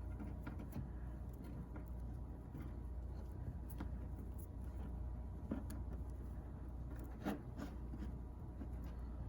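Faint handling sounds of a CAT6 cable and plastic network jack being worked by hand: a few small clicks and light rustling, over a steady low hum.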